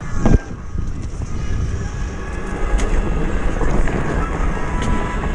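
Fat-tire mountain bike ridden fast down a dirt trail: wind buffeting the microphone over the steady noise of the tires rolling and the bike rattling. A hard thump over a bump comes just after the start, and a few sharp clicks follow later on.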